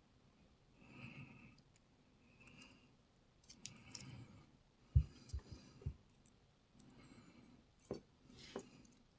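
Small metallic clicks, scrapes and taps of lock-picking tools working in a Lockwood MT5 padlock as the core is worked to turn it. There are a few soft knocks about halfway through and two sharper clicks near the end.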